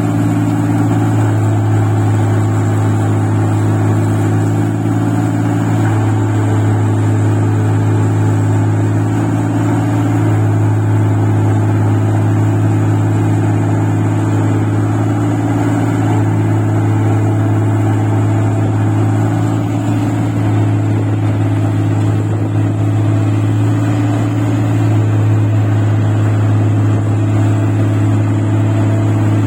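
Engine of a rice-paddy machine running steadily while it works deep, muddy field soil, with a strong low drone whose pitch shifts slightly every few seconds.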